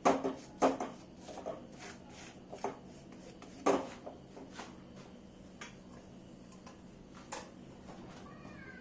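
A spatula knocking and scraping against a kadhai as a gram flour and spice mixture is stirred and roasted, with about half a dozen sharp clinks spread out.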